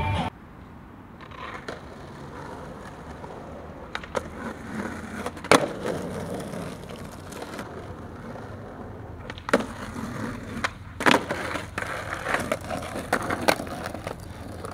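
Skateboard wheels rolling over rough asphalt, with several sharp clacks of the board striking the ground.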